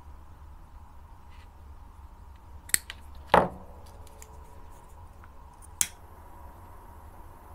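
Scissors cutting the tails of paracord: three sharp metallic snips, the loudest a little over three seconds in, with a brief ring.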